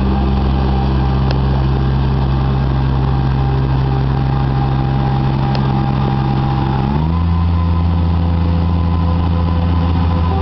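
Custom-built tracked diesel marsh harvester running as it drives and turns, a steady engine note with a whine above it. About seven seconds in, the engine note changes and the whine steps up in pitch.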